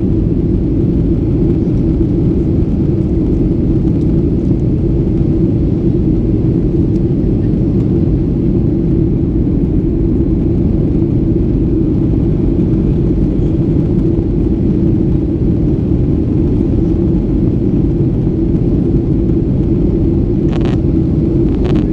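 Steady low rumble of a Boeing 737-800 in flight, its CFM56-7B engines and airflow heard from inside the cabin after takeoff.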